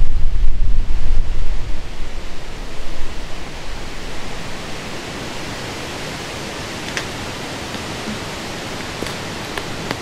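Strong wind gusting on the microphone with a heavy low rumble, easing after about three seconds into a steady hiss of wind through the woods. A few faint ticks come near the end.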